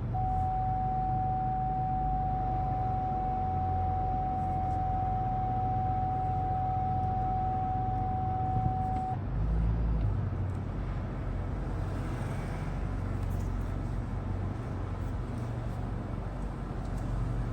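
A 2020 Lincoln Navigator creeping along at low speed, with a steady low rumble. A single steady electronic tone sounds for about the first nine seconds and then stops, and a short low thump comes about ten seconds in.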